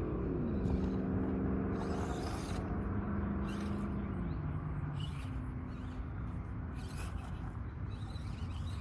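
Small electric motor of an Axial SCX24 RC crawler humming as it crawls. Its pitch falls in the first half second, holds steady, then drops lower about four seconds in as the throttle changes, with faint scrabbling of the tyres over rock.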